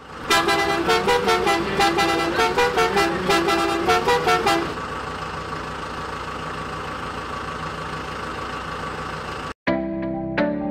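A truck horn toots a quick run of short notes for about four seconds. A steady truck-engine drone then runs until it cuts off suddenly, and short musical notes follow near the end.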